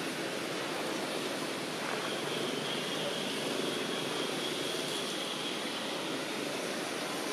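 Steady outdoor background noise: an even rush with no distinct events, and a faint steady high hum above it.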